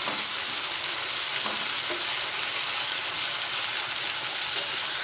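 Chopped tomatoes and onions sizzling in hot oil in a frying pan with a steady hiss, stirred with a wooden spatula.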